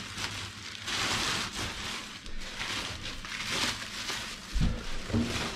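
Rustling and scraping of cardboard and foam packaging being handled, with a dull thump near the end.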